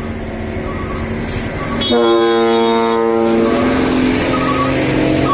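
A dump truck's ship-style air trumpet horn blasts once, a loud chord of several held tones starting suddenly about two seconds in and lasting about a second and a half, over the steady running of the truck's diesel engine.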